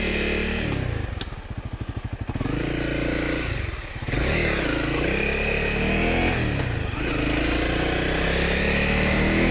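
Honda dual-sport motorcycle's single-cylinder engine running on the road. It drops to low revs with single firing pulses audible about a second in, then picks up and accelerates through several gears, the pitch climbing and dipping at each shift.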